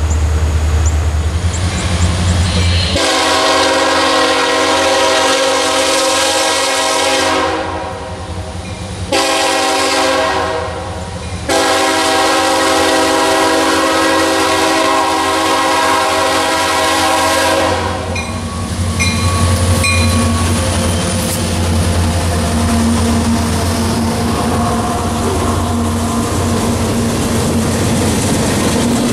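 Diesel freight locomotive's air horn sounding three long blasts, the last the longest, over the engine rumble. Then the locomotives and cars roll past with a steady rumble and clatter of wheels on rail.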